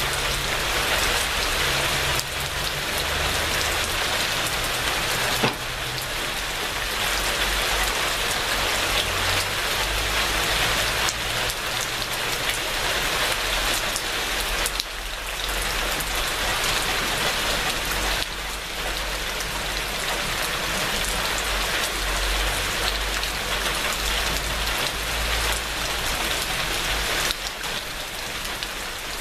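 Steady heavy rain falling and pattering on surfaces, an even hiss that barely changes, with a few slight, sudden shifts in loudness.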